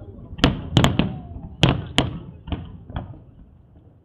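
Aerial fireworks shells bursting: a run of about seven sharp bangs, each trailing off in an echo, most of them in the first three seconds, then growing quieter near the end.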